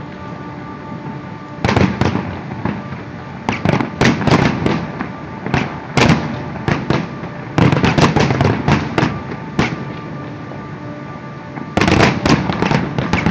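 Fireworks display: aerial shells bursting in rapid volleys of sharp booms and crackles, with short lulls between the volleys.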